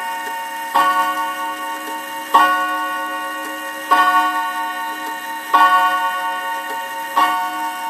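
Mantel clock's hour strike on several gong rods at once, each blow a ringing chord. Five evenly spaced strikes about a second and a half apart, each ringing on into the next, as part of the count of twelve.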